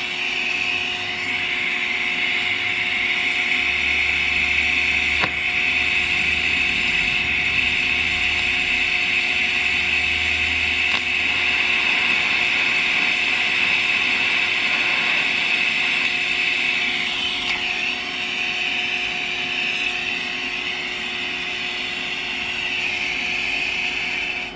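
DC TIG welding arc held steadily while a bead is laid with filler rod: a continuous hiss with a steady buzzing tone under it, cutting off near the end.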